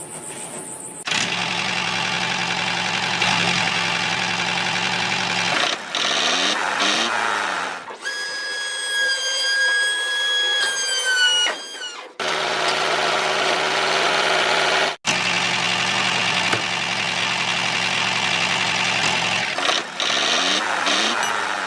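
A small motor running steadily, cutting off sharply several times. In the middle, a high steady whine holds for a few seconds, then drops in pitch and stops.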